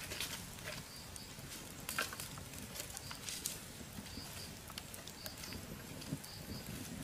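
Small wood fire crackling, with scattered sharp pops and snaps at irregular intervals.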